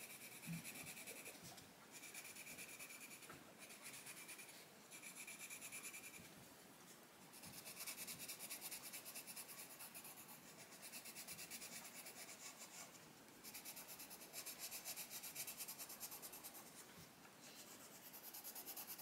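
A Crayola Colours of the World coloured pencil shading on fairly smooth colouring-book paper: faint, quick back-and-forth scratching strokes in runs of one to a few seconds, with short pauses between.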